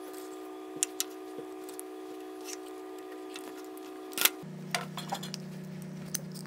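Metal spring clamps clicking and snapping as they are squeezed open and clipped onto glued plywood and a melamine-faced board, a dozen or so short clicks with the sharpest snap about four seconds in. Under them runs a steady hum of held tones that drops in pitch about halfway through.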